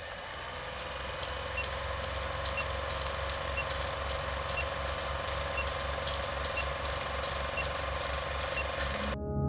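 Film-projector sound effect for a countdown leader: a steady mechanical whirr and clatter with crackle and clicks over a pulsing low hum, and a short faint beep once a second. It cuts off suddenly just before the end, where a low ringing tone begins.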